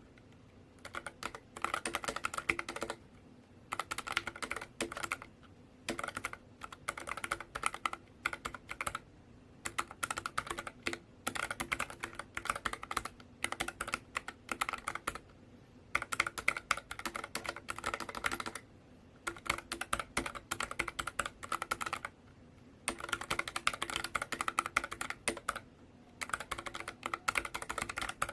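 Typing on a NuPhy Air60 low-profile mechanical keyboard: rapid key clicks in runs of one to three seconds, with short pauses between.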